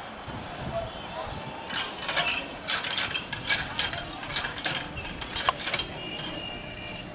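Metal water jug being handled at a metal standpipe: a run of irregular metallic knocks and clinks for about four seconds, ending with a short ringing clink.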